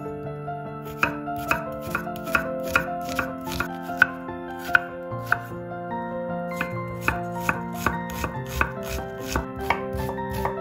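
Chef's knife chopping an onion on a wooden cutting board: a run of sharp knocks, about two to three a second, starting about a second in with a brief pause midway. Background music plays throughout.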